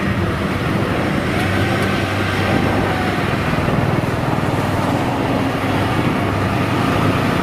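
Kubota DC-70G combine harvester running, its diesel engine and harvesting machinery making a loud, steady mechanical hum with a dense rattle as it crawls on its tracks through soft, sticky paddy mud.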